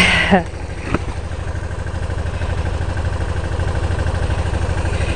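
Honda VTR250's 250 cc V-twin engine idling steadily. A brief vocal exclamation comes right at the start, and a single click follows about a second in.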